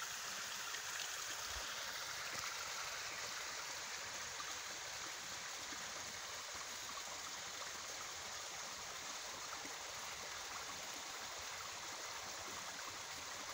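Steady rush of creek water spilling over a small waterfall, the creek running full after heavy rain.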